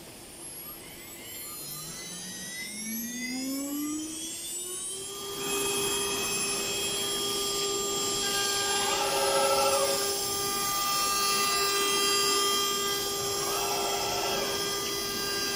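CNC router spindle spinning up, its whine rising in pitch for about four seconds, then running at a steady high whine. Two short swells of hiss come around the middle and near the end.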